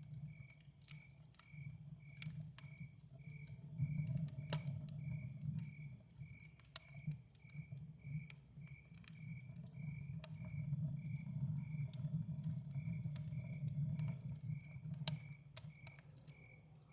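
Campfire crackling, with sharp pops scattered irregularly throughout, over a low steady rumble. A cricket chirps at an even pace the whole time, short high chirps a few times a second.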